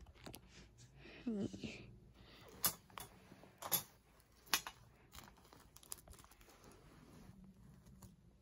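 Faint handling noise of a small toy wire shopping cart and plush toys being moved about, with a few sharp clicks and taps. A brief vocal sound about a second in.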